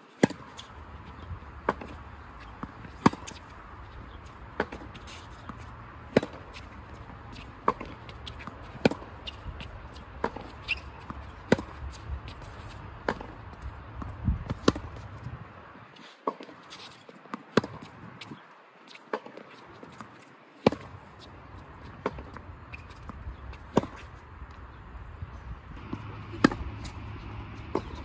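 Tennis baseline rally on a hard court: sharp pops of the racket striking the ball, the loudest about every second and a half, with fainter ball bounces and the far player's hits in between.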